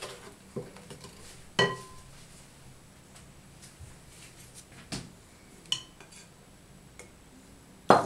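Scattered clinks and knocks of kitchenware against glass mixing bowls, a wooden spoon and a metal sieve: one ringing glass clink about a second and a half in, a few softer taps, and a louder clatter near the end as the sieve is picked up over the bowl.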